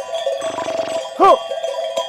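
Bells on a grazing flock of sheep clinking and ringing without a break. About a second in comes a short, loud animal call that rises and falls in pitch.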